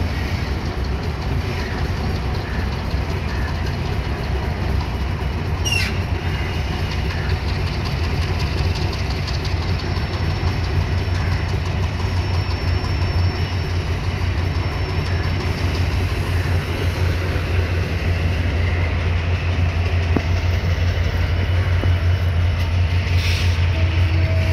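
Diesel-hauled passenger train running toward the listener through a rail yard: a steady low engine drone with rail noise, slowly growing louder, and a brief high squeak about six seconds in.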